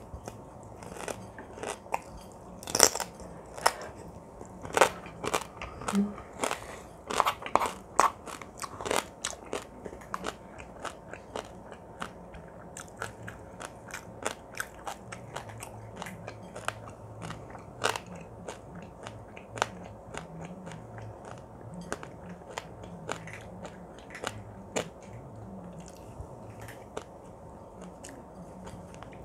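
A person chewing food close to the microphone, with many sharp crunching clicks, densest and loudest in the first ten seconds and sparser after that.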